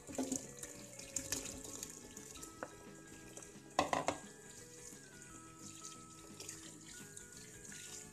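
Kitchen tap running into a bowl of water full of strawberries, with splashing as a hand stirs the fruit to wash it, and a louder splash about four seconds in. Soft background music plays underneath.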